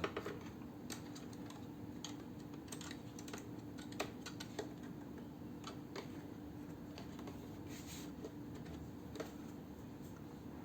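Scattered light clicks and taps of a plastic home humidifier being handled, over a faint steady hum.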